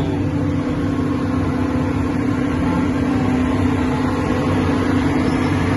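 An engine running steadily at an even speed: a continuous drone with one strong, unchanging low tone.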